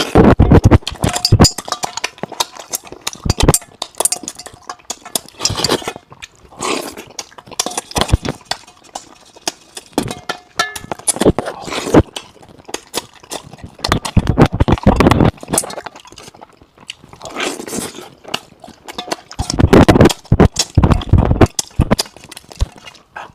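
A person slurping, sucking and chewing meat off a braised fish head close to a clip-on microphone: irregular wet smacks and clicks, with louder bouts every few seconds.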